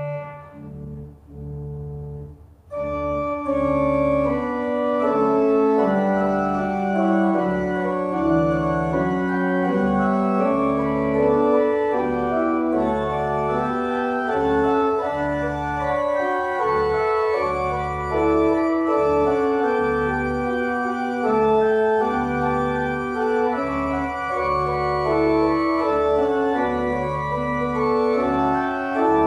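Church organ playing slow, sustained chords over a steady bass. For the first few seconds only the low notes sound, then full chords come back in about three seconds in.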